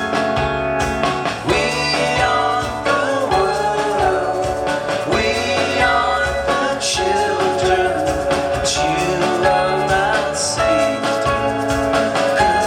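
Live rock band playing a song: steady full-band chords with a melodic lead line gliding in pitch over them.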